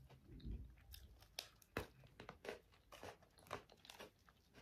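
Faint crunching of a Pocky biscuit stick being chewed: a string of small, irregular crunches.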